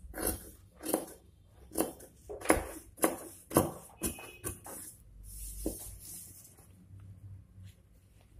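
Paper rustling and crinkling as a newspaper pattern piece is handled and pulled up off a sheet of fusing paper, in a run of sharp crackles about two a second, then a softer rustle.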